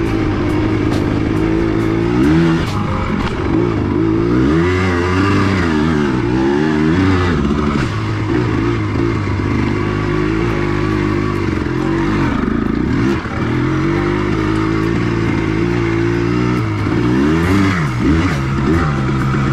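Yamaha Blaster ATV's two-stroke single-cylinder engine, freshly rebuilt, revving up and down repeatedly while riding, its pitch rising and falling several times.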